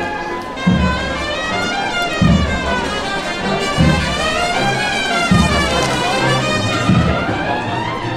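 Cornet and drum band playing a slow Holy Week procession march: massed cornets carry the melody over a bass drum struck about once every second and a half.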